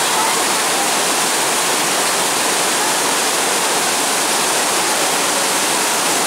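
Waterfall: falling water rushing steadily, an even hiss with no breaks.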